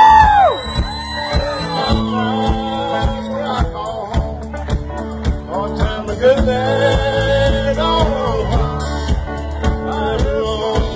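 Live band music with drums and guitar, with voices singing over it. A long held sung note ends about half a second in.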